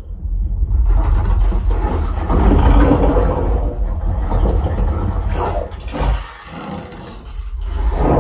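Dolby trailer sound effects played loud through a B&W floor-standing speaker and REL subwoofer home-theatre system: a dense rushing, whooshing noise over deep bass rumble. It eases off about six seconds in and swells again near the end.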